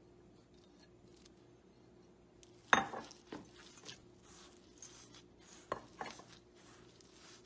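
Hands mixing mashed sweet potato into flour in a stainless steel bowl: soft rubbing and squishing with a few knocks against the bowl. The loudest sound is a single sharp knock a little under three seconds in, with two more near the end.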